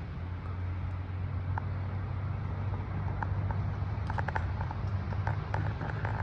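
Steady low outdoor rumble, with scattered light ticks and taps in the second half.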